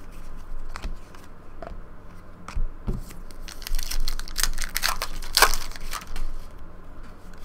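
Hands handling trading cards and a pack wrapper: crisp crinkling, rustling and small clicks, busiest about halfway through.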